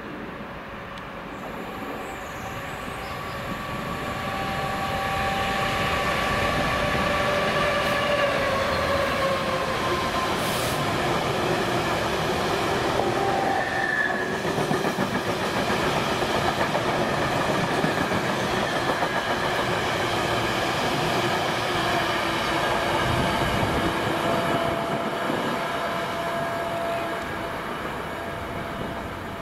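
A Class 66 diesel locomotive's two-stroke V12 engine growing louder as it approaches and passes, then the wheels of a long rake of empty ballast wagons running past over the rails, dying away near the end.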